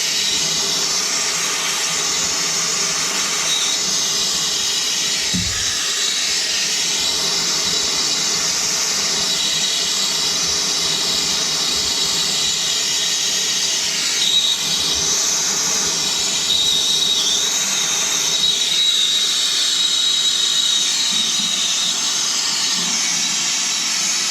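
Handheld gas soldering torch hissing steadily as its flame heats the steel water heater tank around a leak to flow solder into it, with a thin whistle running through the hiss.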